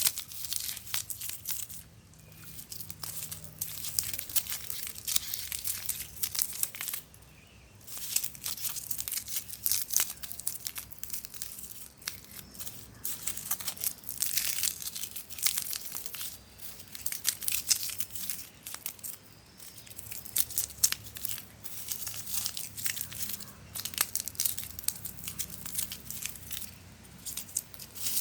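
Rigid foam insulation board being broken apart by hand into small pieces: dense crackling and squeaky tearing in spells, with short pauses between them.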